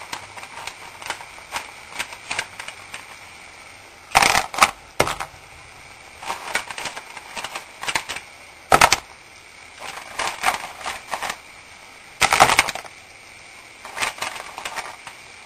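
Mussels in their shells being dropped into a pan of tomato sauce, the shells clattering against each other and the pan. There are a few loud clatters several seconds apart, with lighter clicks between them.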